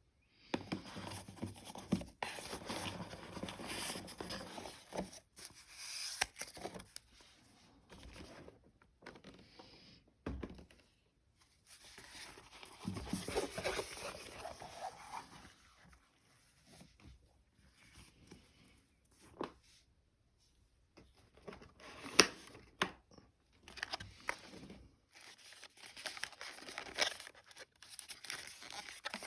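Pokémon card packaging being torn open and crinkled in uneven stretches with short pauses between, plus a few sharp clicks and taps, the loudest about 22 seconds in.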